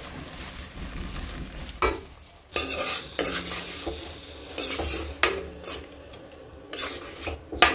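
Hot water poured into a hot wok of fried greens, a steady rush for about two seconds. Then a steel ladle stirs the mix, scraping and clinking against the wok again and again.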